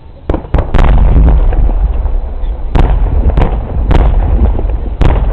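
Aerial fireworks shells bursting: a quick run of three bangs under a second in, then single bangs at about three, three and a half, four and five seconds, over a continuous low rumble of further explosions.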